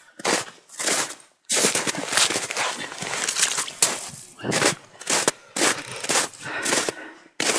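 Boots crunching through packed snow on ice as a person walks, with a longer unbroken stretch of crunching and scuffing in the middle, then separate steps about two a second.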